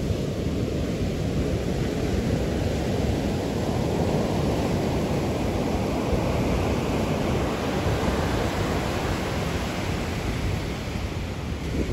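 Surf breaking and washing up a beach, with wind rumbling on the microphone; the wash swells a second or two in and eases off toward the end.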